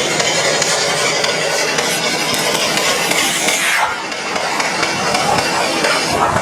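Stihl chainsaw running at high revs, a loud, dense, steady noise that dips briefly about four seconds in.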